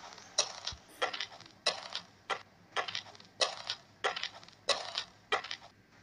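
Footsteps crunching on gravel, a steady walking pace of about one step every two-thirds of a second, nine steps in all.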